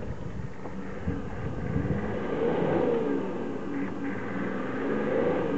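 Engine of a 4x4 working slowly through deep ruts and potholes. It revs up and drops back twice, once around the middle and once near the end.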